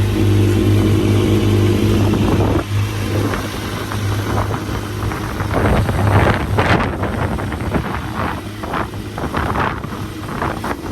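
Sport motorcycle engine running with a steady note for the first couple of seconds, then surging up and down in revs from about halfway through.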